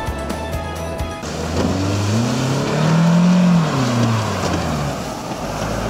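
Car engine pulling a sedan and its trailer through tall grass, its pitch rising to a peak about three seconds in and then falling as it eases off. Music plays briefly at the start.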